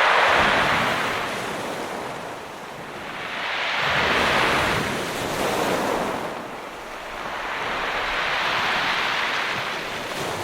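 Ocean surf: waves breaking and washing in, the rush swelling and ebbing about every four seconds, three surges in all.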